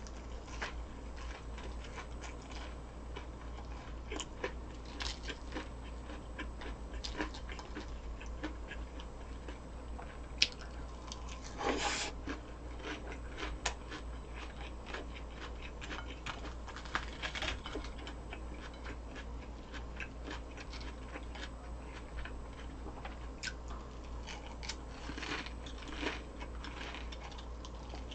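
Close-miked chewing and crunching of crisp fried food, with many short clicks scattered throughout and a louder crunchy burst about twelve seconds in.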